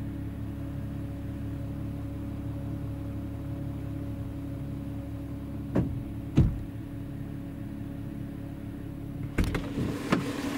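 Porsche Cayenne engine idling steadily, heard from inside the cabin, its RPM stable with the new mass airflow sensor fitted. Two short knocks come about six seconds in and a few more near the end.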